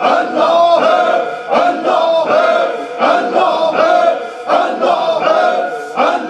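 A group of men chanting dhikr together in a steady, driving rhythm, about two chants a second.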